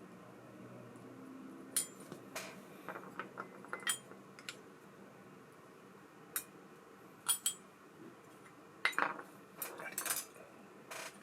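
Small metal reel parts and tools being handled, giving irregular light clicks and clinks. The sharpest come in a short cluster a little past the middle and again near the end.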